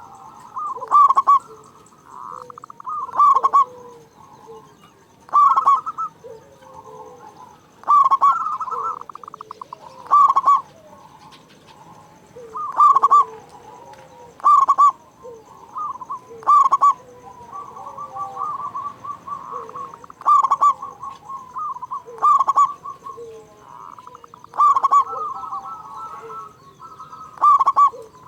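Zebra dove (perkutut) cooing over and over, loud pulsed song phrases recurring about every two seconds with softer coos in between.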